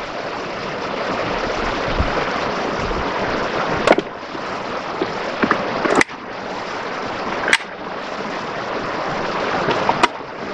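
Steady rushing of a creek, with four sharp clicks spread through it.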